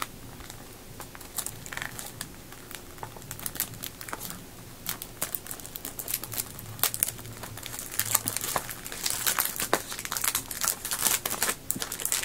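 Plastic shrink wrap crinkling and crackling as it is handled off a Blu-ray case. The crackles are sparse at first, then denser and louder in the second half.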